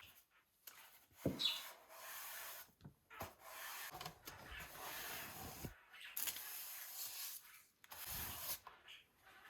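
Irregular rubbing and scrubbing strokes on a kitchen surface, with a few light knocks.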